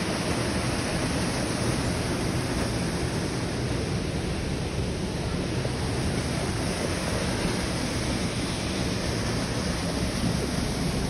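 Steady rush of water from a waterfall and stream.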